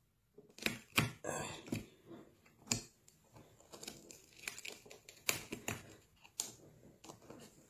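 Hands working at a fabric ballistic panel to dig out a bullet lodged between its layers: irregular rustling and scraping of the cloth with many sharp clicks.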